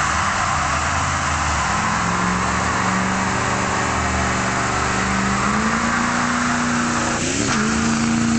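Ford F-250 diesel pickup doing a burnout: the engine is held at high revs while the rear tyres spin on pavement with a steady hiss. Revs step up about two-thirds of the way in, dip and rise briefly near the end, then hold high.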